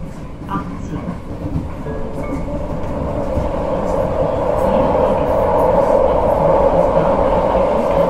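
Vienna U-Bahn metro train running, heard from inside the passenger car: a steady rumble and rushing noise of wheels on rail that grows steadily louder over the first five seconds, then holds.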